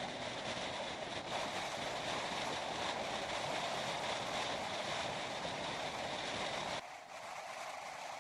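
Alvia train running at speed: a steady rushing noise of wheels and air. Near the end the low rumble drops away abruptly and the noise becomes thinner and slightly quieter.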